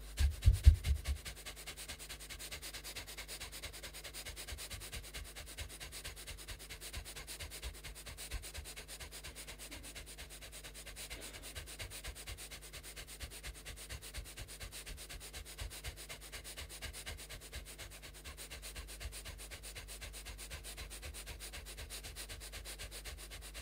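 Panting Kapalabhati breathing: fast, forceful breath strokes in an even rhythm, strongest in the first second, then steady.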